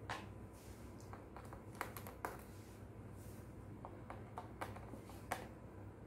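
Faint, scattered light clicks and taps, a dozen or so at uneven intervals: a small screwdriver and hands working at the bottom-panel screws of a Dell G5 laptop.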